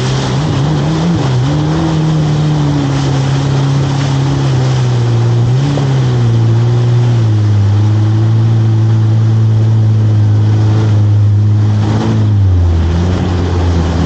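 Jet ski engine running at speed over a constant rush of water and spray. The engine note rises in the first couple of seconds, holds steady with small wobbles, then drops near the end as the throttle is eased off.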